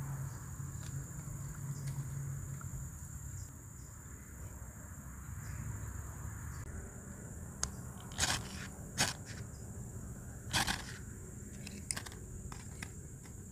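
A ferro rod struck about six times, each a short harsh scrape throwing sparks onto a cotton ball until it catches fire. Insects keep up a steady high drone underneath.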